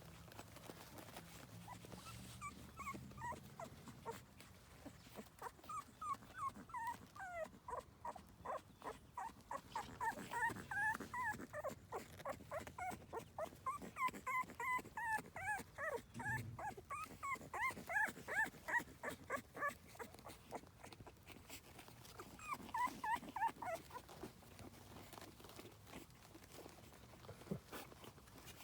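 French Bulldog puppies whimpering and squeaking, quick runs of short high-pitched cries that are busiest in the middle and die away near the end.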